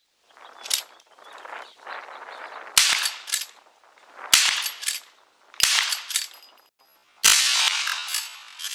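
Rifle fire from an Uberti 1873 lever-action rifle in .45 Colt: four sharp shots about a second and a half apart, each with a short echo, with lighter clicks between them.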